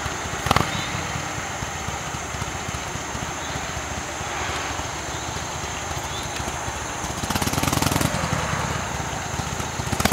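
Cruiser motorcycle engine running at low speed at a distance as the bike weaves slowly through cones, briefly louder about seven seconds in. A sharp tap sounds near the start.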